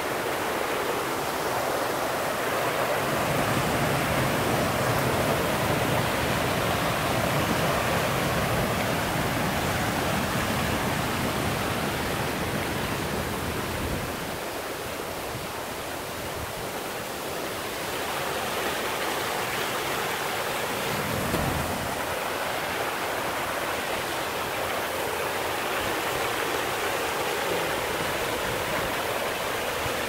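Rain-swollen mountain stream rushing over rocks in a small waterfall: a continuous loud rush of water, a little quieter for a few seconds just after the middle.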